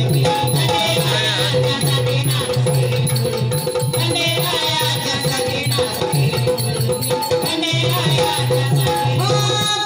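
Instrumental passage of Marathi devotional folk music for Khandoba: a steady, repeating drum beat with jingling rattle-like percussion under a melody instrument, with no singing.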